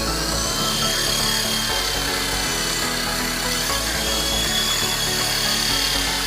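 Firework-rigged toy helicopter going off: a steady dense hiss with a high whine that rises in pitch as it starts and then holds, over background music.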